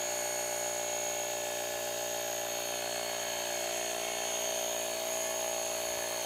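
Small battery-powered portable air pump running steadily, a steady motor whine, as it tops up the air pressure in a hand-pump sprayer bottle so the bottle keeps spraying without hand pumping.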